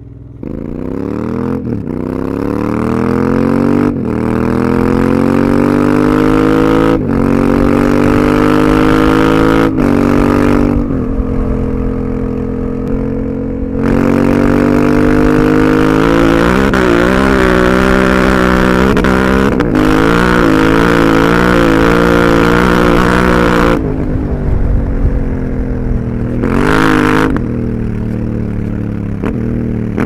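Honda Africa Twin 1100's parallel-twin engine accelerating hard through the gears: the pitch climbs, breaks briefly at each upshift, and climbs again several times in the first ten seconds. It then pulls again and holds a steady high-rev run before the throttle rolls off near the end, with one short rev.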